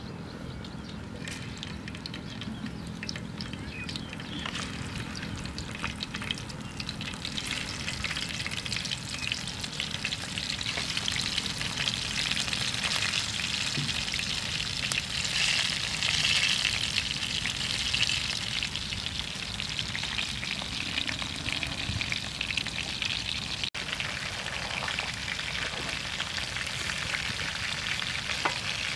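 Meat-and-vegetable rolls sizzling in hot oil in a frying pan, a dense crackle that swells to its loudest around the middle and then carries on steadily.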